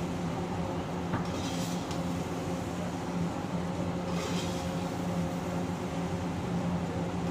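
Steady mechanical hum of a commercial kitchen's exhaust hood over the stove. A metal spatula scrapes and tosses rice in a large wok twice, about a second and a half in and again about four seconds in.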